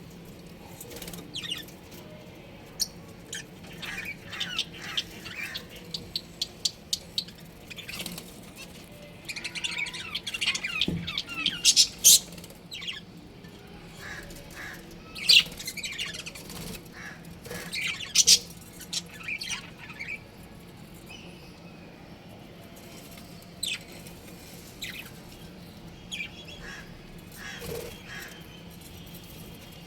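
Budgerigars chirping and chattering in short, scattered calls. The calls are busiest in the middle, where a few loud, sharp calls stand out.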